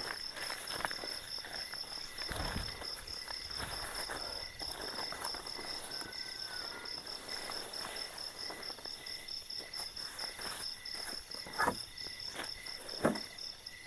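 Crickets trilling in a steady, rapidly pulsing chorus. Over them come the rustle and flap of a groundsheet being spread over dry leaf litter, and two sharper thuds near the end.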